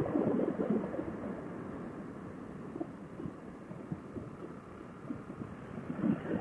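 Motorcycle riding noise picked up through a helmet intercom microphone: a low, throbbing rumble of wind buffeting and engine, with nothing in the higher pitches. It eases off in the middle and picks up again near the end.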